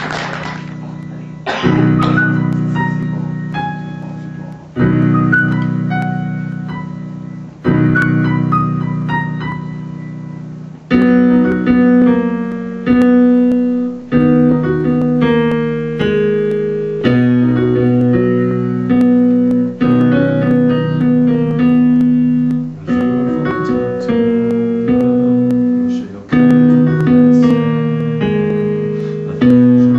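Electronic stage keyboard played with a piano sound. Sustained chords are struck about every three seconds and left to ring and fade. From about eleven seconds in, it changes to a steadier, quicker pattern of chords about once a second.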